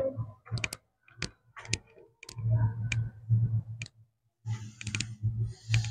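Board duster wiping a chalkboard in rubbing strokes, with scattered light clicks and knocks, mostly in the first few seconds.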